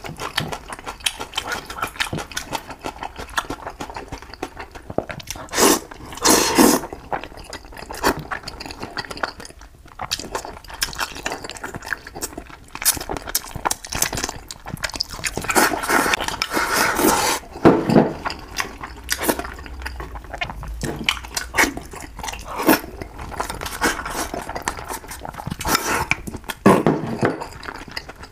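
Close-miked eating: wet chewing, sucking and slurping of fish and rice, with many short clicks of chopsticks. The longest slurps come about 6 s and 16–18 s in.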